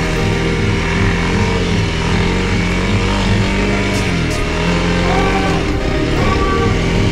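Honda CRF300L's single-cylinder four-stroke engine running at low trail speed, its pitch rising and falling a little with the throttle. Music plays underneath and becomes more noticeable near the end.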